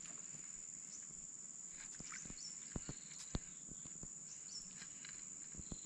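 Quiet open-air ambience with a steady high-pitched insect drone, broken by a few faint, short clicks.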